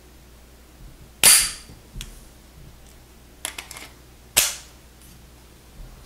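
Sharp metallic clacks from a Glock 23 pistol being handled: two loud clacks about three seconds apart, each with a brief ring, and a few lighter clicks between them.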